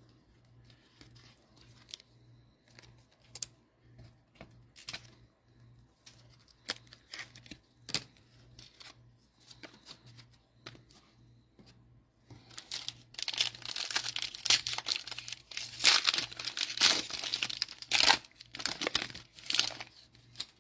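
Plastic wrapper of a Mosaic cello pack of trading cards being torn open and crinkled, a dense crackling run for the last seven seconds or so. Before that, only scattered faint clicks of handling.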